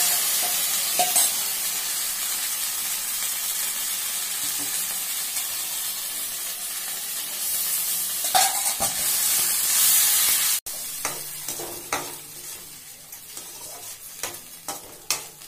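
Spice sauce sizzling and frying in a hot steel wok as it is poured in and stirred, the hiss swelling louder around eight and ten seconds in. After a sudden break about ten and a half seconds in, the sizzle is quieter and a slotted metal skimmer clinks and scrapes against the wok.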